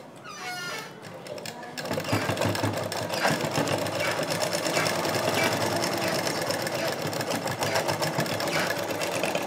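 Black belt-driven sewing machine stitching through fabric, starting up about two seconds in and then running in a steady rapid clatter.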